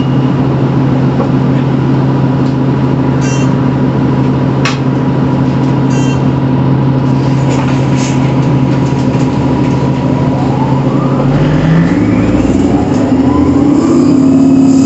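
2008 Orion VII NG hybrid-electric bus running with a steady low hum and a faint steady high tone, with a few sharp clicks or rattles. A little past ten seconds in, the electric drive's whine rises in pitch as the bus accelerates, and the drivetrain grows louder near the end.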